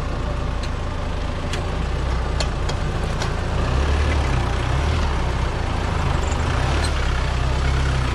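Mahindra Thar CRDe's diesel engine running steadily, getting louder about halfway through.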